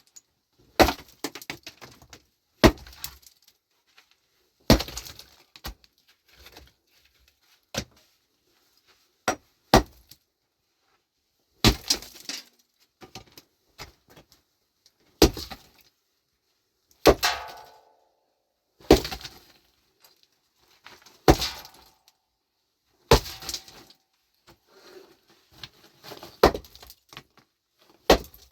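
Heavy hand tool striking hard ground or rock in repeated blows, about one every two seconds, each a sharp crack followed by a short rattle. One blow, about 17 seconds in, rings with a metallic tone.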